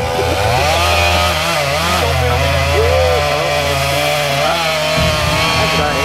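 Chainsaw running hard as it cuts into a large dead pine, its engine pitch rising and falling steadily under load.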